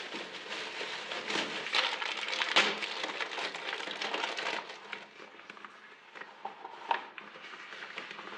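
Thin plastic bags crinkling and rustling as hands open them and pull things out. It is busiest in the first half, then quieter, with a few sharp clicks later.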